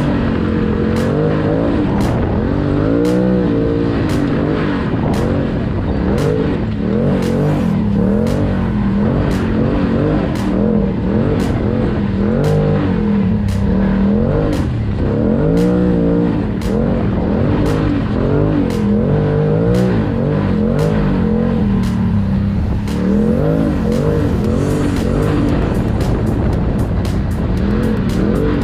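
Can-Am Maverick side-by-side engine revving up and down again and again as it is driven over sand dunes, heard from inside the open cab. Music with a steady beat plays along with it.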